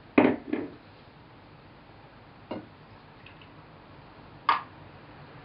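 Stainless-steel cookware being handled on a table: two knocks just after the start, a lighter click about two and a half seconds in, and a sharp metal clink about four and a half seconds in.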